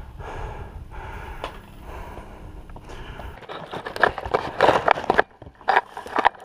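Heavy breathing from a climber, then from about halfway in loud crackling and rustling of dry branches and leaves as he pushes down through brush, with several sharp cracks.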